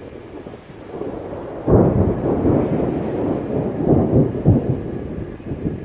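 Thunder: it breaks suddenly a little under two seconds in, then rolls on with a couple of louder surges before easing off.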